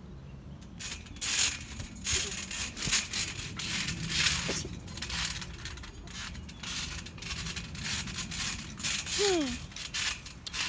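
Irregular rustling and scraping of things being handled, with a short falling-pitch voice sound about nine seconds in.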